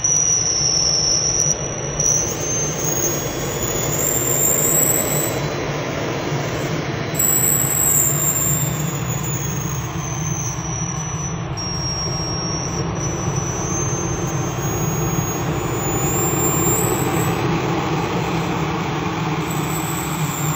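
1:5 scale BVM L-39 Albatross model jet's miniature turbine engine running. It makes a steady rushing roar under a high whine that climbs and drops in pitch several times.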